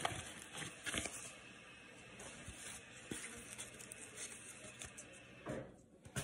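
Rustling and crinkling of a paper card wrapper and a plastic card holder being handled, with short louder crackles at the start, about a second in and again near the end.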